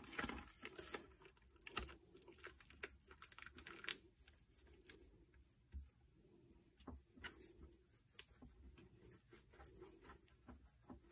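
Clear plastic film being peeled and crinkled off a cured fiberglass-and-epoxy patch on a glider fuselage: faint, irregular crackling and tearing, busiest in the first few seconds and sparser after.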